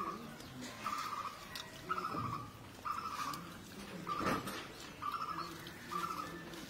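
A bird calling over and over, a short fluttering note repeated about once a second, seven times, with one sharper noise about four seconds in.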